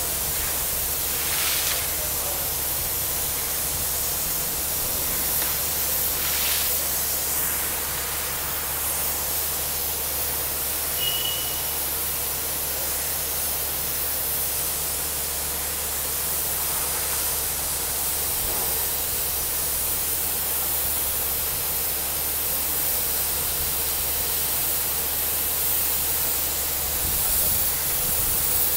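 Steady hiss and rush of compressed air blowing water and mud up out of a borewell during air-compressor cleaning, with a steady low hum underneath.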